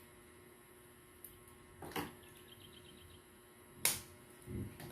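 Faint handling sounds of a cable plug and adapter: a few light clicks and knocks, about two seconds in, a sharper click near the end and a dull thump just after it, over a low steady hum.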